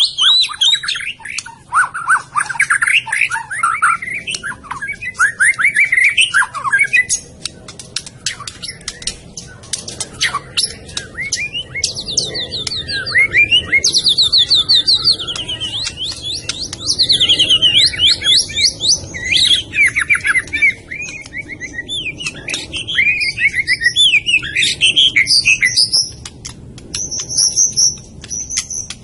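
White-rumped shama (murai batu, Medan type) singing a long, varied song of rapid trills and whistled phrases, one after another, with a stretch of sharp clicking notes about a quarter of the way in.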